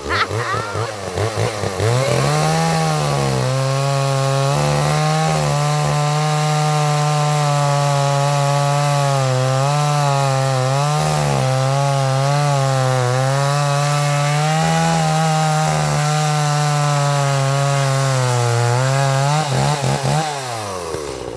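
Two-stroke chainsaw revving briefly, then held at full throttle while cutting through dead juniper wood for about seventeen seconds, its pitch dipping a few times as the chain bites under load. Near the end the engine winds down as the throttle is released.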